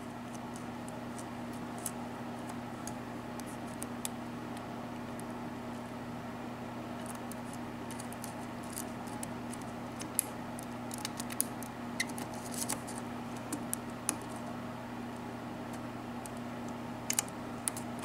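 Faint clicks and scratches of a hook pick working the pins of a 4-pin ABUS Euro padlock under tension in single-pin picking, more frequent in the second half. A steady low hum runs underneath.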